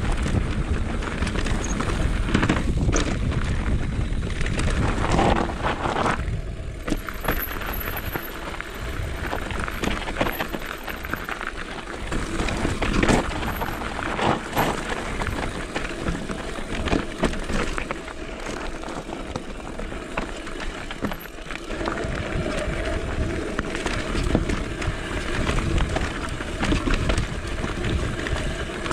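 Mountain bike rolling fast down a rocky dirt trail: tyres crunching over gravel and loose stones, with the bike knocking and rattling over bumps and a steady low rumble underneath.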